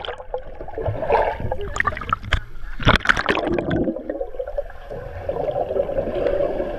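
Muffled gurgling and bubbling of pool water heard with the microphone submerged, with a sharp knock about three seconds in.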